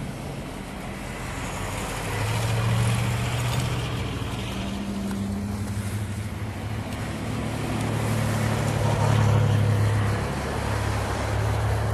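A motor vehicle's engine running, a low hum that swells louder twice, with a hiss of noise over it.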